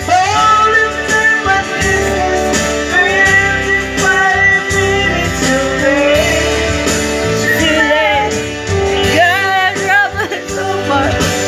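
Karaoke: a man singing into a corded microphone over a music backing track.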